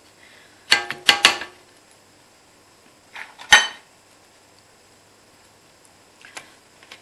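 A spatula knocking and scraping against the stainless steel bowl of a KitchenAid Artisan stand mixer while the mixer is stopped. There is a quick cluster of clinks about a second in, one sharp knock about three and a half seconds in, and a faint tap near the end.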